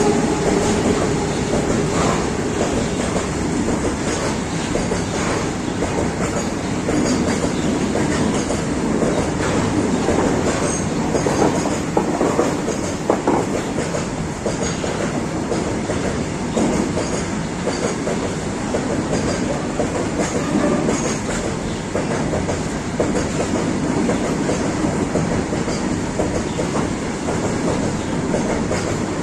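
Indian Railways freight train of BOXN open wagons rolling past with a steady rumble, the wheels clattering over the rail joints and giving the odd clank and squeal.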